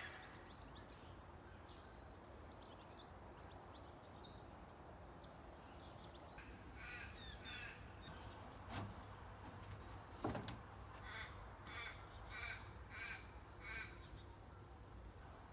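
Crows cawing, with a run of about six evenly spaced caws in the second half, and smaller birds chirping high up in the first half.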